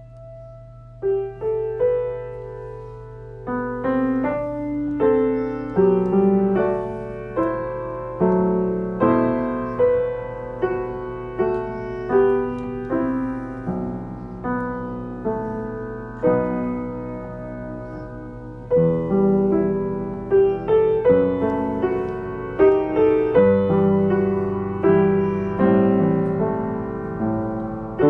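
Piano music: notes and chords struck one after another, each fading away, with a low steady hum underneath.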